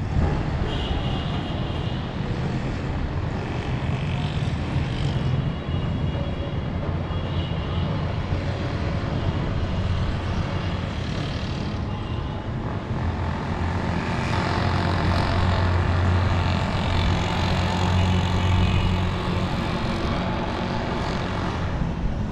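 Steady low rumble of wind on the microphone mixed with the hum of town traffic, swelling a little past the middle.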